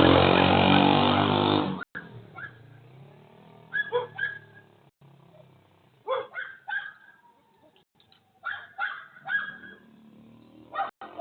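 A dog, hurt after being struck by a vehicle, yelping and whimpering in short, repeated cries. This follows a loud, continuous sound that cuts off about two seconds in.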